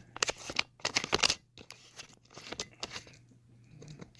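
Handling clicks and knocks from adjusting a broken camera stand: a quick flurry of sharp plastic-and-metal clicks in the first second and a half, then a few scattered light ticks.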